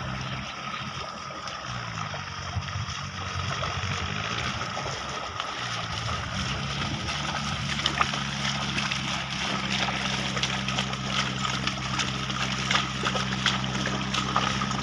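Bullocks' hooves and a wooden plough sloshing and splashing through flooded paddy mud, with sharper splashes more frequent in the second half. A steady low engine hum runs underneath, wavering in pitch for a few seconds early on.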